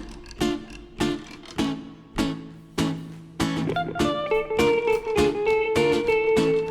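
A rock band's instrumental song intro: guitar chords struck about once every 0.6 s, with a sustained lead guitar melody of long held notes joining in about three and a half seconds in.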